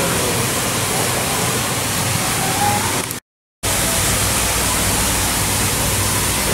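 Steady, fairly loud hiss of even noise, with no clear rhythm or pitch; it cuts out to dead silence for about half a second a little over three seconds in, then resumes.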